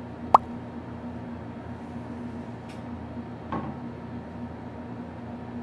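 A sharp click about a third of a second in and a softer knock about three and a half seconds in, over a steady low hum.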